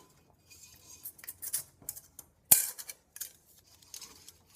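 Small pieces of scrap aluminum clinking and rattling as they are handled, with one sharp clatter about two and a half seconds in.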